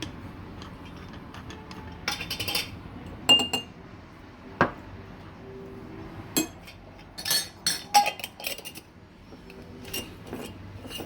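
Kitchen clatter: dishes and utensils knocking and clinking on and off, some clinks ringing briefly, over a steady low hum.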